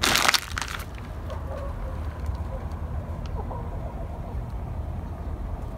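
Plastic zip-top bag crinkling under a hand in a short burst about the first second, then a low steady rumble.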